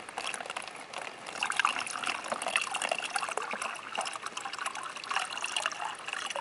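Water being poured from one container into another, a steady trickling and gurgling as the container fills.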